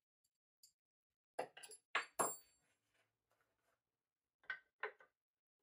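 Wooden hand screw clamp parts being handled, knocking and clinking against each other and the bench: a quick run of about five knocks a second and a half in, then two more near the end.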